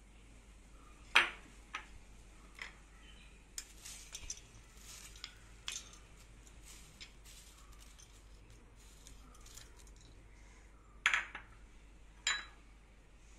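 Scattered sharp clinks and knocks of a steel bowl, a steel spoon and glass dishes being handled while garnish is sprinkled over rice, the loudest about a second in and two more near the end.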